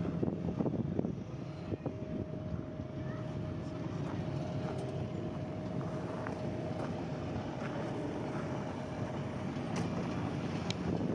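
Wind buffeting the microphone as a steady low rumbling noise, with a faint steady hum under it that fades out near the end.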